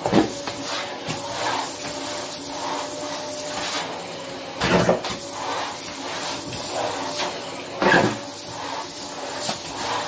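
Vacuum cleaner running steadily with a thin motor whine as its floor nozzle is pushed over a laminate floor. Three short louder rushes, just after the start, near the middle and about eight seconds in, as latex gloves are sucked into the nozzle.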